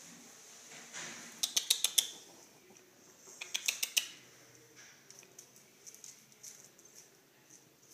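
A Chihuahua puppy's claws clicking and scrabbling on a hard floor in two quick runs of about five clicks each, one about a second and a half in and one about three and a half seconds in. The scrambling steps are those of a puppy that cannot keep its footing, from the neurological stage of canine distemper.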